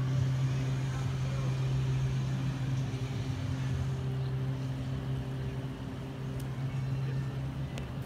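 Steady low mechanical hum with a deep, even droning tone and fainter higher tones above it, unchanging throughout.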